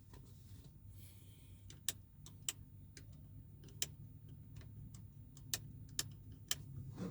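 Faint, sharp clicks from a Chevrolet Onix's steering-wheel audio control buttons, pressed and rocked back and forth one after another, roughly every half second to second. They are being worked to spread contact cleaner into switches that had a poor contact and were not changing track or station.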